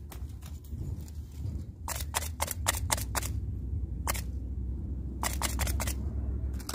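Sharp clicks in quick clusters: a run of about six a couple of seconds in, a single one around four seconds, another run of about five near the end, over a low steady rumble.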